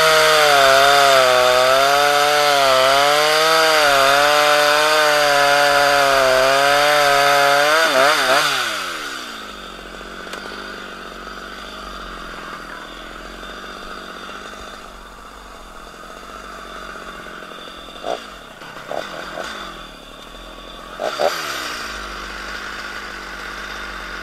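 Stihl MS 230 two-stroke chainsaw cutting at full throttle through a bundle of firewood sticks, its engine note wavering under the load. About eight seconds in the throttle is let off and the engine falls to a quieter idle, with a few short knocks near the end.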